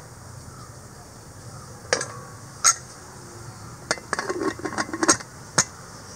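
Aluminium pressure cooker lid being fitted and locked onto the pot: two sharp metal clanks, then a quick run of rattling clicks as the lid is turned and the handles are brought together, and one last click.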